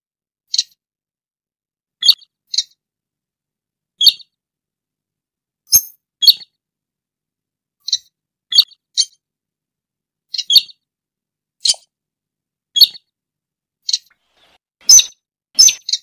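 Slaty-breasted rail (sintar) calling: short, sharp, high notes repeated irregularly about once a second, some in quick pairs.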